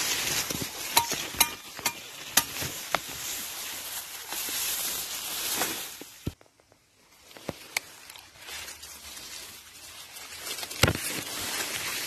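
Corn leaves and stalks rustling as the plants are pushed aside and handled, with a run of sharp snaps in the first few seconds and another near the end. The rustling goes quiet for about a second midway.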